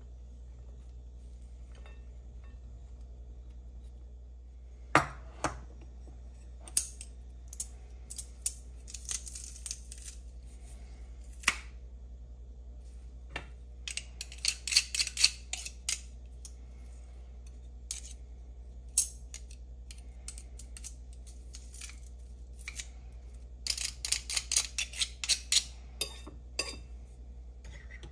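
Kitchen utensil clicks and scrapes against a bowl as chopped herbs and onion are tipped in, then quick runs of metal clicking from a hand-held garlic press crushing a clove, in short clusters over a steady low hum.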